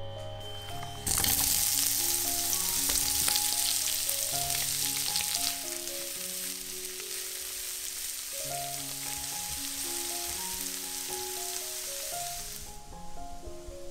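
Sliced onions frying in hot vegetable oil in a nonstick pan: a loud sizzle starts suddenly about a second in as the onions go into the oil, eases off after a few seconds and goes on while they are stirred, then stops near the end. Soft background music plays throughout.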